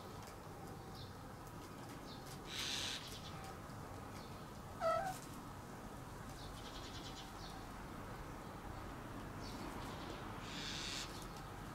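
A cat gives a single short meow about five seconds in.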